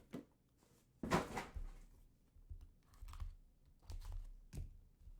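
Sealed trading card box and pack being opened by hand: tearing and rustling of wrapper and packaging, with a louder tear about a second in, then a run of shorter rustles and clicks.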